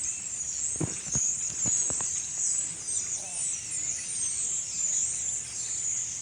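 A large flock of birds calling all at once: a dense, continuous, high-pitched chatter of overlapping chirps. A few light knocks sound about a second in.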